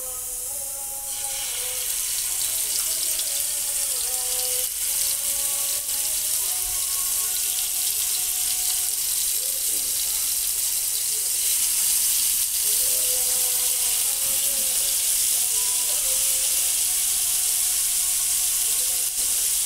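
Marinated chicken pieces sizzling in hot oil in a frying pan. The sizzle starts about a second in as the first pieces go in and grows louder over the next few seconds as more are added, then holds steady.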